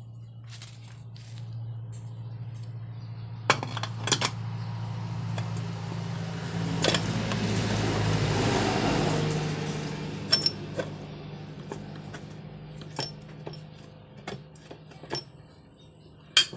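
Small metal parts clinking and clicking against each other and against metal, in scattered knocks, over a steady low hum. A louder, rushing noise swells and fades in the middle.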